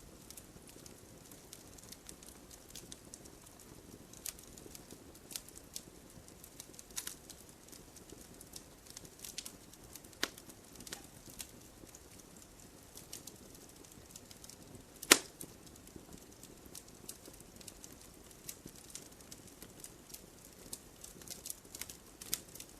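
Burning firewood crackling: irregular small pops and ticks over a low steady hiss, with one loud sharp pop about two-thirds of the way through.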